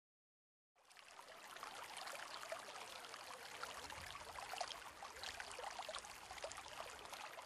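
Faint sound of water with many small droplet ticks, fading in about a second in.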